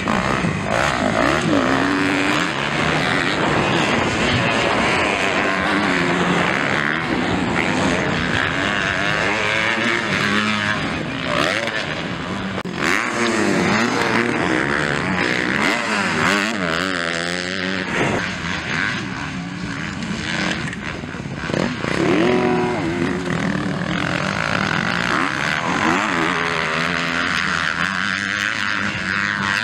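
MX2 motocross bike engines revving hard on a dirt track, the pitch climbing and dropping sharply again and again as the throttle is opened and shut through corners and jumps.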